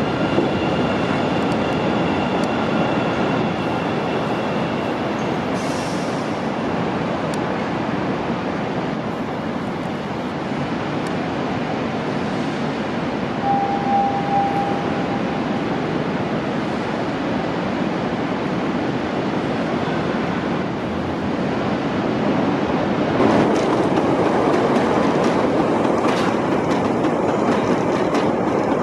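CTA 7000-series rapid-transit train running along the track, a steady rolling rumble. A high steady whine stops about three seconds in, a brief tone sounds about halfway through, and the running gets louder and rattlier from about 23 seconds in.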